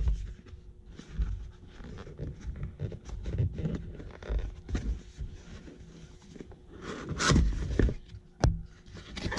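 Cardboard watch box being handled: short irregular scrapes and taps of cardboard as the box is slid from its sleeve and its flaps are pulled open. There is a louder scrape about seven seconds in and a sharp tap about a second later.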